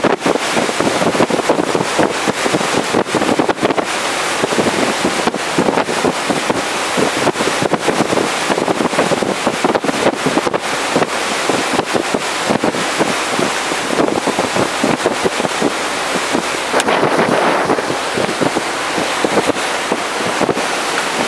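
Wind buffeting the camera's microphone on the open deck of a boat out on the water: a loud, unbroken rush that flutters constantly in short gusts.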